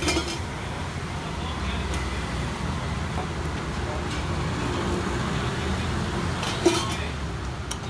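Steady low rumble of a busy food-stall setting, with a short clack at the start and a louder single knock about seven seconds in.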